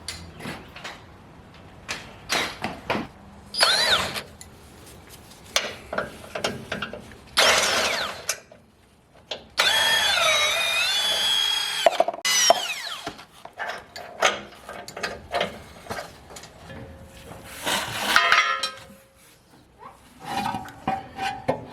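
A handheld power tool undoing the bolts of the crossbar under the sump, in several short runs whose whine rises and falls in pitch, the longest lasting about two and a half seconds near the middle. Metal clicks and knocks come between the runs.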